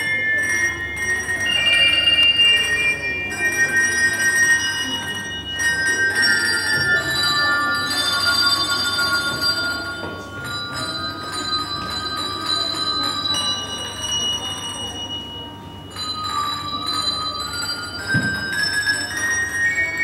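Handbell ensemble of five ringers playing a melody, the bells' clear notes ringing on and overlapping one another. The playing thins out and grows quieter about three-quarters of the way through, then picks up again.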